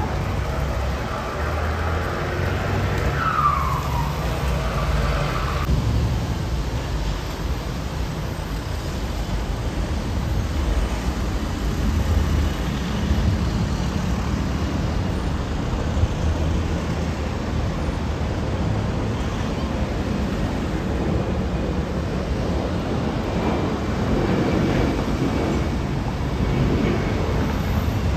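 Steady street traffic rumble from passing road vehicles. Two short falling whistle-like tones come in the first few seconds.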